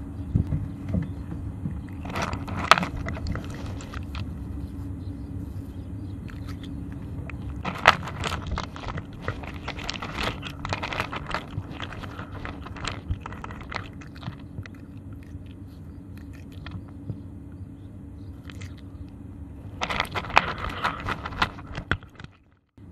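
Cat's fur and body rubbing against the camera's microphone at close range: a steady low rumble with bursts of scraping, crackling and clicking about two seconds in, through the middle, and again near the end.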